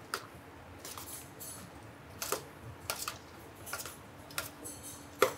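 Fusilli pasta salad in mayonnaise dressing being stirred in a stainless steel bowl: soft, irregular clicks as the mix is turned against the metal, with one louder click near the end.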